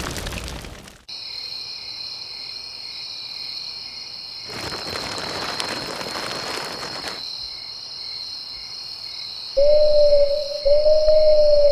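Night-time insect chirring, steady and high, with a short rush of hissing noise in the middle; near the end an owl hoots twice, long, loud, level hoots, the second longer.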